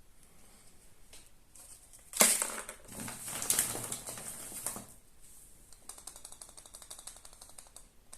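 Foil wrapper of a Kinder Surprise egg crinkling as it is peeled off, for about three seconds, followed by a quick run of small dry clicks.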